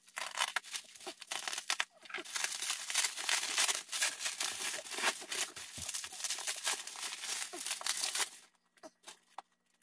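Packing material crinkling, rustling and tearing as a shipping box is unpacked by hand, a dense run of crackles that stops about eight seconds in.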